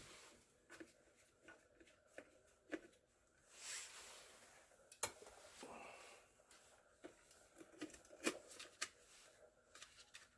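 Faint scattered clicks and light knocks, two sharper ones about five and eight seconds in, with a brief soft hiss a little before four seconds in.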